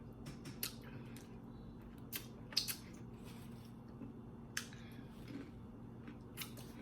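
Close-miked eating: chewing with about five sharp crunches and crackles, the loudest about two and a half seconds in.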